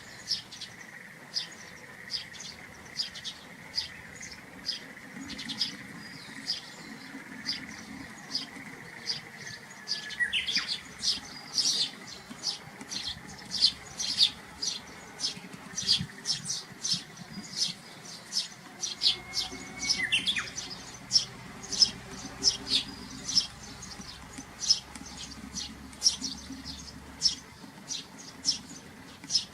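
A bird chirping, with short high chirps repeated about twice a second.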